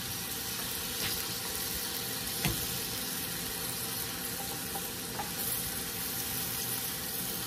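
Butter and oil sizzling steadily in sauté pans of king trumpet mushrooms and broccolini, with garlic cloves just added. A couple of light knocks, the clearest about two and a half seconds in.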